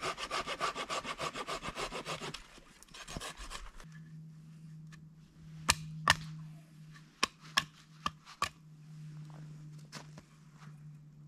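A hand saw cutting through a wooden stick in fast, even back-and-forth strokes for about two seconds. Then come several sharp wooden knocks as cut sticks are handled, over a steady low hum.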